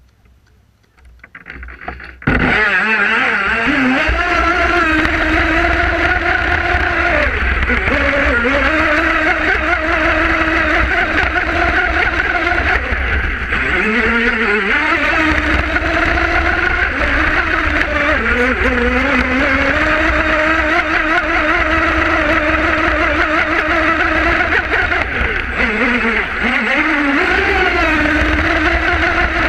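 Brushless electric motor of a twin-hull RC boat running at speed. The whine comes in suddenly about two seconds in, then dips and rises in pitch as the throttle is eased and opened again, with a steady low rumble underneath.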